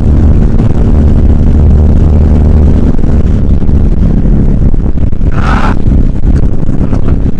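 Motorcycle engine running steadily at freeway cruising speed, heard from the rider's helmet with a constant rush of air noise. About five seconds in there is a brief hiss lasting about half a second.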